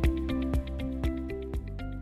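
Background music with a steady pulse of plucked or struck notes over sustained tones, fading out near the end.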